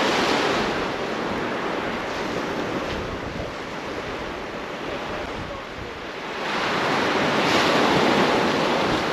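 Waves breaking on the shore, a steady rush with wind on the microphone. The surf eases off mid-way and swells up again about two-thirds of the way through.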